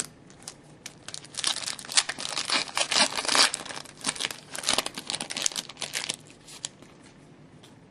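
Foil wrapper of a trading-card pack being torn open and crinkled: a dense crackling that runs for about five seconds, then a few scattered crinkles.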